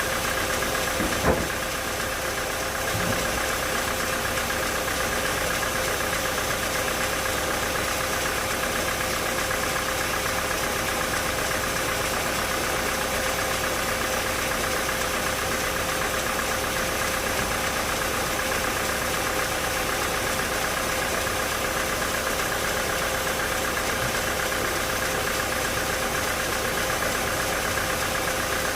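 Sawmill machinery running steadily with a constant drone. There is a single sharp knock about a second in.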